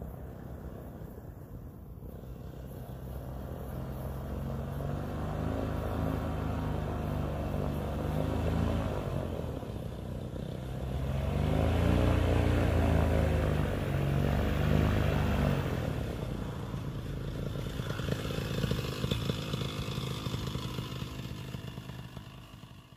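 Paramotor's single-cylinder two-stroke engine running at low throttle as the pilot comes in to land, its note rising and falling twice, loudest about halfway through, then dying away.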